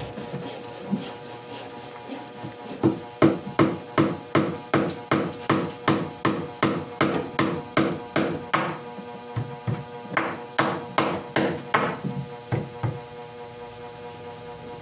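Hammer striking wood in a run of quick, even blows, about three a second. The blows pause briefly about nine seconds in, then resume for a few more.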